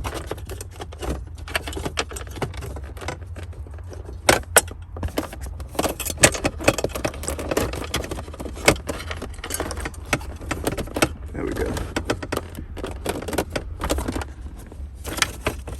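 Metal parts and bolts clinking, rattling and knocking irregularly as a short-throw shifter is handled and set in place by hand, with a few sharper knocks.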